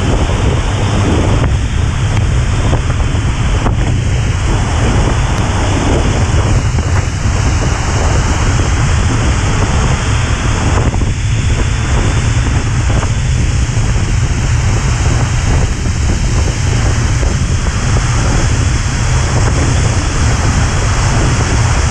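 Steady wind noise buffeting the microphone of a motorcycle rider's camera at riding speed in rain, a loud even rush that is heaviest in the low end.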